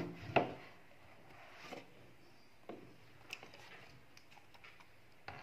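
Cardboard phone box being handled and its inner box slid out: a few faint scrapes and taps with quiet between.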